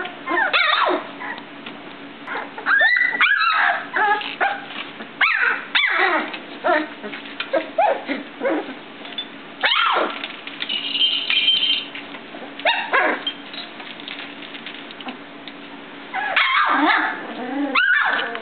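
A litter of 18-day-old golden retriever puppies yipping and whimpering as they play. The short high-pitched calls come in clusters every second or two, with a quieter stretch about three-quarters of the way through.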